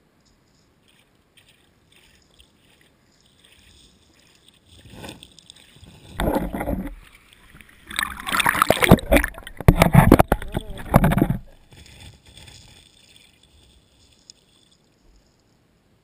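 Water splashing and sloshing around the camera's waterproof housing as it breaks the surface of a shallow river, in loud bursts through the middle few seconds. Either side, faint underwater ticking and clicking.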